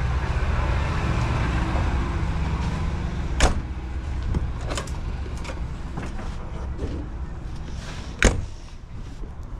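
A steady low rumble that slowly fades, broken by two sharp knocks about three and a half and eight seconds in, the second the louder: motorhome exterior storage-bay doors being shut.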